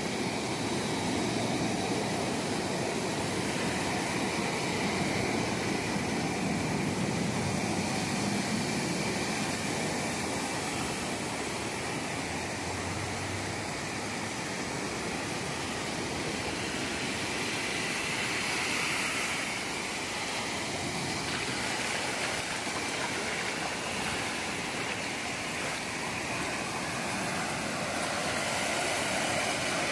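Small waves breaking and washing up a sandy beach: a steady surf wash that swells gently as each wave comes in.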